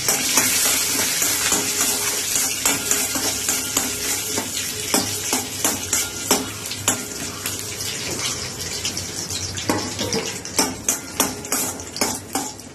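Cashew pieces frying in ghee in a stainless steel kadai, sizzling, while a steel spoon stirs them with repeated irregular clicks and scrapes against the pan.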